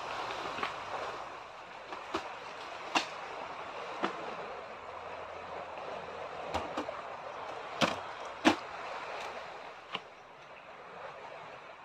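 Steady wash of sea waves breaking on a nearby beach, with scattered sharp clicks and knocks from camping gear being handled and set up by the tent. The loudest knock comes past the middle.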